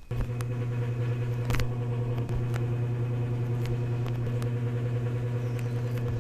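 A steady machine hum that switches on abruptly, holds at an even pitch and level, and cuts off suddenly at the end, with scattered faint clicks over it.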